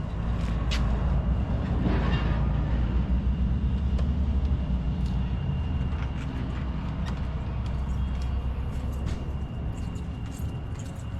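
Low rumble of a passing vehicle, loudest a few seconds in and then slowly fading.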